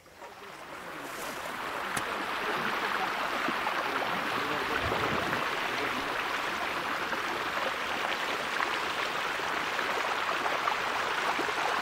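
Water pouring and gushing steadily into a freshly dug earth pit, filling a small mud wallow. It swells up over the first couple of seconds, then runs on steadily.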